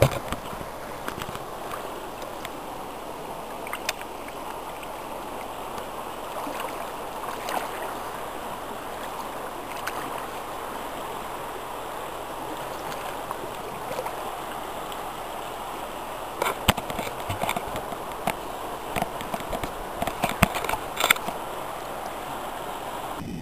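River water running close to the microphone, a steady wash with scattered splashes and knocks that come more often in the last several seconds.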